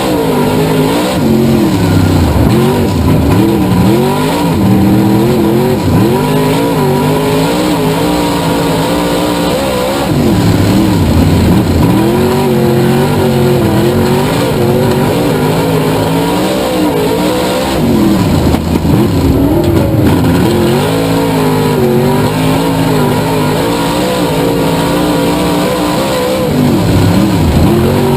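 Race car engine running hard around a track, its pitch climbing and falling again and again as it accelerates and backs off, with deeper drops about a third of the way in, about two thirds of the way in, and near the end.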